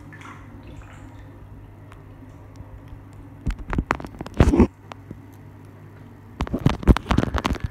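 Water splashing and sloshing close to a phone's microphone in a small swimming pool, with knocks from handling. A low steady hum at first, then irregular bursts of splashing about halfway through and again, denser, near the end.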